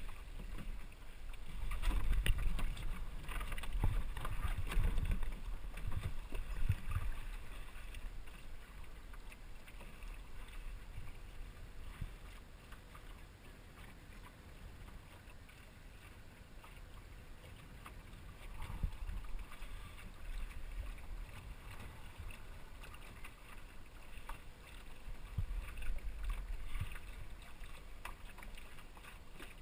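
A small sailboat under way: wind buffets the microphone and water washes along the hull. Heavy gusts of rumble come in the first several seconds and again near the end, with a quieter stretch of water noise between.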